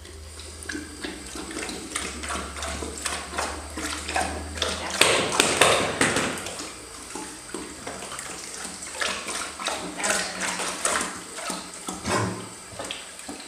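Water running from a bidet faucet into its ceramic bowl, with irregular splashing as a Rhodesian Ridgeback laps at the stream now and then.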